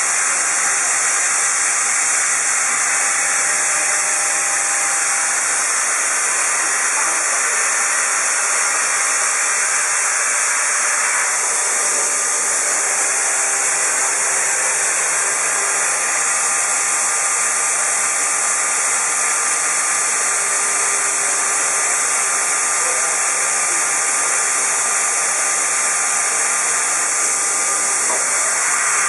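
Shoda NC router trimming a pressure-formed plastic keyboard cover: a loud, steady hiss with faint, steady whine tones beneath it.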